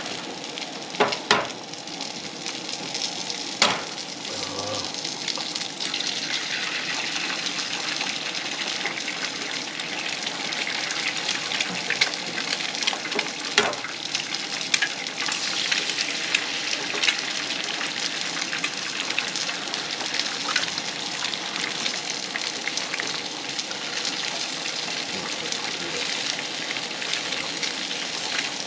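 Food frying in oil in a skillet on a camp stove: a steady sizzle, broken by a few sharp clicks of the utensil against the pan.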